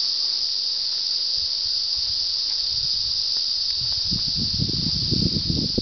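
A dense chorus of cicadas: a steady, high, unbroken buzz. Low irregular thuds and rustling join in during the second half.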